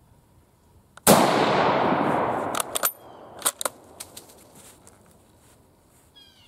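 A single shot from an Argentine 1891 Mauser bolt-action rifle in 7.65×53mm about a second in, echoing for well over a second, followed by a few sharp clicks.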